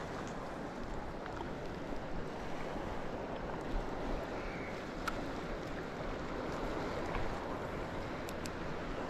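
Steady rush of waves washing on the shore, with wind, and a few faint ticks about halfway through and near the end.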